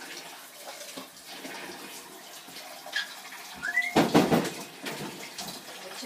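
Water running steadily from a sink tap. About four seconds in there is a short rising squeak, then a sudden louder burst of noise.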